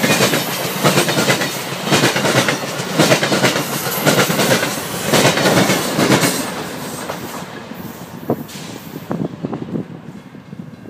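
Amtrak Downeaster passenger train passing at speed, its steel wheels clicking rhythmically over the rail joints. The sound fades steadily after about six seconds as the last coach moves away, leaving a few scattered clicks.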